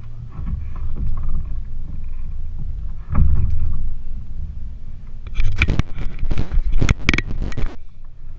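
Knocks and scrapes of gear against a canoe hull over a low rumble, with a loud cluster of knocks lasting about two seconds past the middle.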